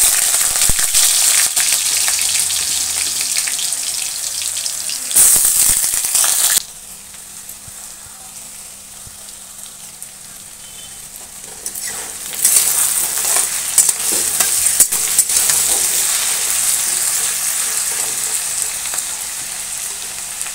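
Diced potatoes sizzling in hot oil with cumin seeds in a steel kadai. The frying hiss is loud from the start, drops back about six and a half seconds in, and rises again about twelve seconds in with a few clicks and scrapes of stirring, then slowly eases.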